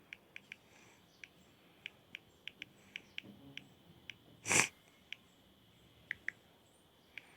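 Smartphone touch-keyboard click sounds: light, irregular taps as text is typed on the screen. One short, louder sniff about four and a half seconds in.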